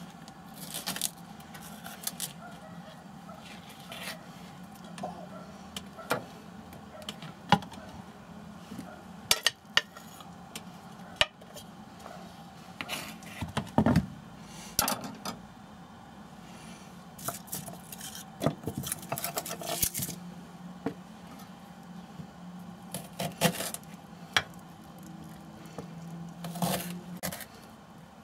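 Kitchen knife chopping green pepper and ginger on a chopping board: irregular sharp taps of the blade on the board, with some scraping and clinks as the chopped pieces are pushed onto a plate. A faint steady hum runs underneath.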